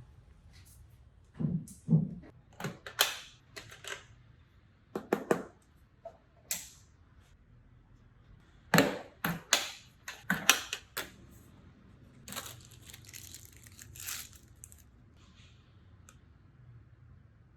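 Objects being handled close to the microphone: irregular sharp clicks and knocks, a few with a dull thud, then a stretch of rustling a few seconds before the end.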